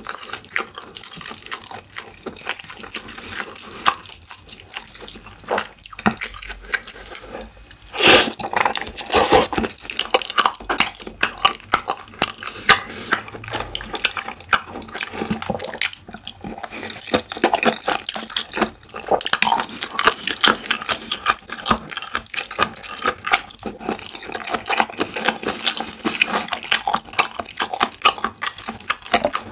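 Close-miked wet chewing and smacking of spicy stir-fried squid, a dense run of small moist clicks, louder about eight seconds in.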